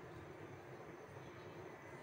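Faint, steady low rumble and hiss from an aluminium pot of water and macaroni heating on the stove, still short of a rolling boil.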